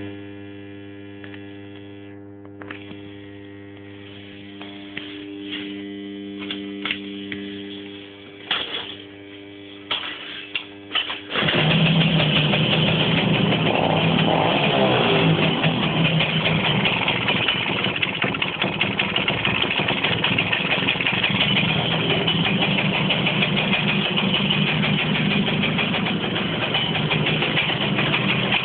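Komar 232 moped's small two-stroke engine being started: a low steady hum with a few knocks, then about eleven seconds in the engine catches and runs steadily and loudly.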